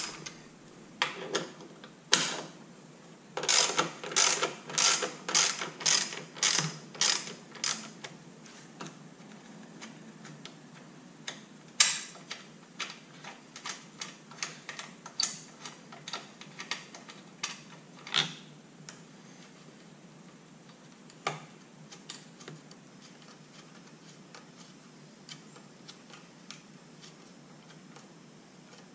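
Socket ratchet clicking in runs of strokes as a half-inch socket backs out two bolts. The clicks thin out and stop about three quarters of the way through.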